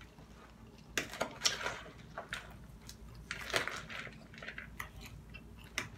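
Metal fork clinking and scraping against a glass salad bowl as it stirs and picks through spinach salad, in scattered short clicks and rustles.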